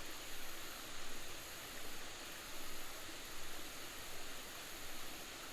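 Steady hiss of water running over a small creek waterfall, with faint swells in level.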